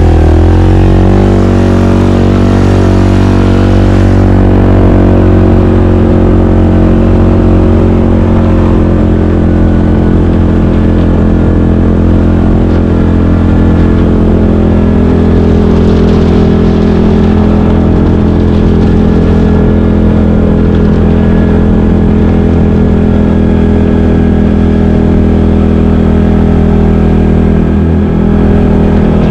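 Yamaha Grizzly 700 ATV's single-cylinder engine running under way, rising in pitch as it picks up speed in the first second or so, then holding a steady note.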